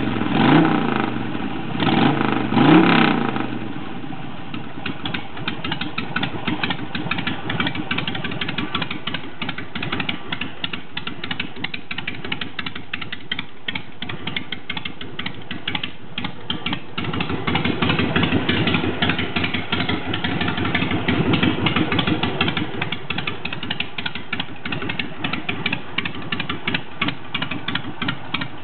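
2004 Harley-Davidson Sportster 883's V-twin engine running through Hooker Troublemaker exhaust pipes: two quick throttle blips in the first three seconds, then a steady idle with a mild rise in revs about two-thirds of the way through. The carburetor has been freshly rejetted and is still being tuned.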